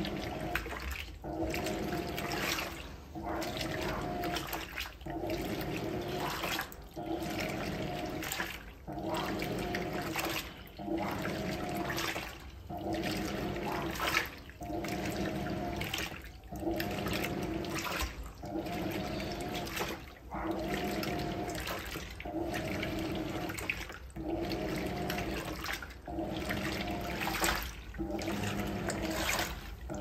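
Hoover Electronic top-loader washing machine agitating a load on its Maxi wash action: water and clothes sloshing back and forth over a steady motor hum. The sound dips briefly about every two seconds in a regular rhythm.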